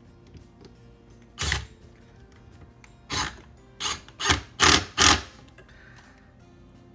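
Six short, loud knocks as a cylinder sleeve is worked down into the head of a Thomas aerator pump: one on its own, then five in quick succession about a second and a half later.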